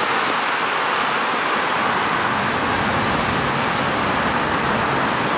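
Freeway traffic: a steady, even wash of tyre and engine noise from many passing cars.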